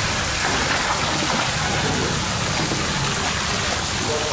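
A steady rush and splash of water jetting from a hose into a shallow tarpaulin tank of live fish.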